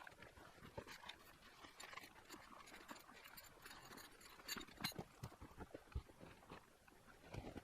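Faint, irregular knocks, clicks and scuffs over a light background hiss, with a few sharper knocks about four and a half to five seconds in and again about six seconds in.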